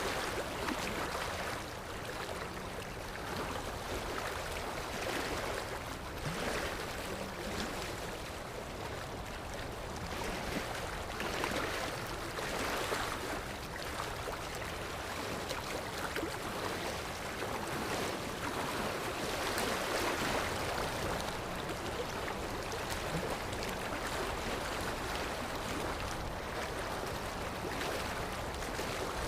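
Sea surf: waves washing in and drawing back, a steady rush of water that swells and fades every few seconds.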